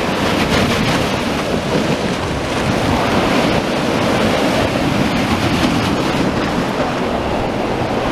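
Sea waves breaking and washing ashore in a steady wash of surf, with some breeze buffeting the microphone.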